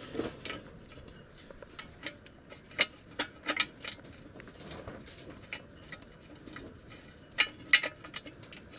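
Metal hand tools clicking and tapping against engine parts and fasteners, in scattered sharp clicks with the loudest pair of taps about seven and a half seconds in.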